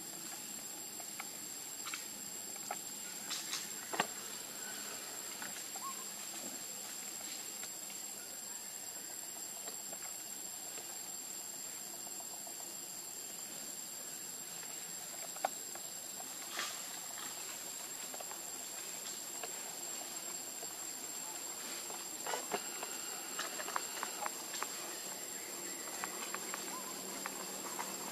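Steady outdoor background hiss with a constant thin high-pitched tone, broken by scattered faint clicks and taps that come more often near the end.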